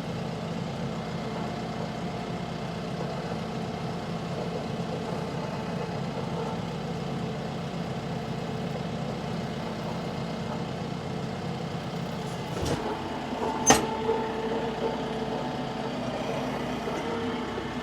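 Tractor engine running steadily under light work, with two sharp metallic clanks about two-thirds of the way through.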